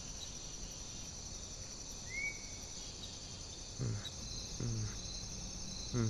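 Crickets chirping steadily as night ambience, with a pulsing chirp joining in during the second half and one short whistle-like chirp about two seconds in. Three brief low vocal sounds from a man come in the second half.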